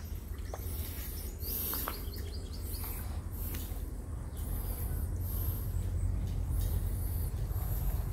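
Small birds chirping in short, high, repeated calls, over a steady low rumble.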